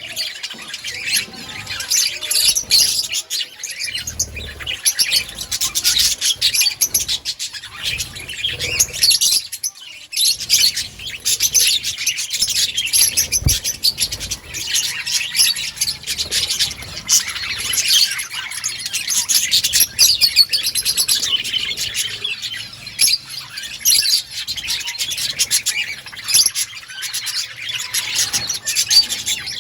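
A colony of budgerigars chattering and chirping all at once, many birds overlapping in a dense, continuous twitter.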